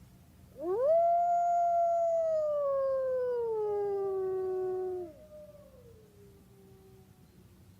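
Timber wolf howling: one long howl that swoops up quickly, holds, then slides down in steps and breaks off about five seconds in, while a second, fainter howl joins near its end and trails off lower.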